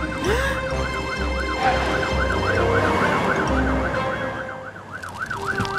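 Cartoon fire engine siren in a fast up-and-down yelp, sweeping about three to four times a second, over a low rumble of truck engines that fades out about four seconds in.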